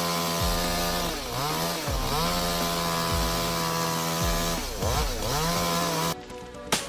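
Two-stroke chainsaw running at high revs. Twice its pitch drops and climbs back up before it cuts off suddenly about six seconds in. A sharp crack follows near the end.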